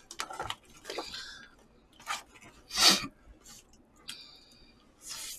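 Eating sounds: chewing, with a spoon and chopsticks clicking against disposable food containers, and one louder short burst of noise about three seconds in.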